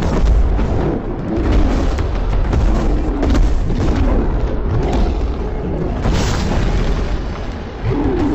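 Action-scene sound effects: repeated heavy booms over a continuous low rumble, with music underneath.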